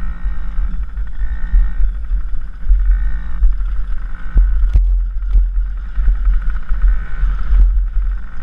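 Dirt bike engine running and changing pitch as the bike is ridden over grass, under heavy wind buffeting on a helmet-mounted microphone. A few sharp knocks come about halfway through.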